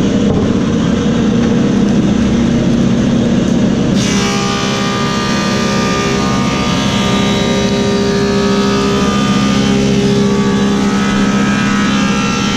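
Woodmaster 725 planer with a helical cutterhead running steadily under dust-collector suction. About four seconds in, the sound turns brighter and higher-pitched as a black cherry slab feeds into the cutterhead and is planed.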